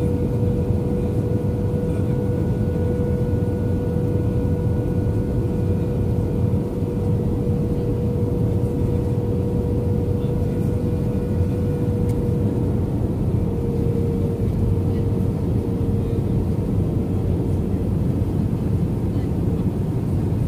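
Airbus A320-200 cabin noise on the landing approach: a steady engine and airflow rumble with a steady whine that drops slightly in pitch about thirteen seconds in.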